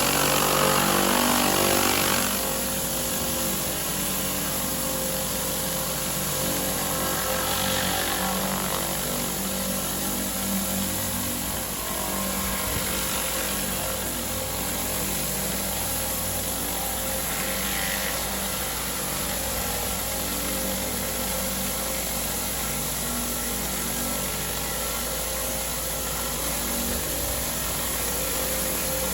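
Engine-driven pressure washer running steadily, its water jet hissing as it blasts the paving, a little louder for the first couple of seconds.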